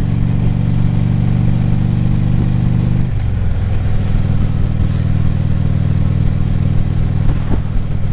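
Harley-Davidson V-twin motorcycle engine running at steady road speed, heard from the rider's helmet. The engine note drops a little about three seconds in, then holds steady.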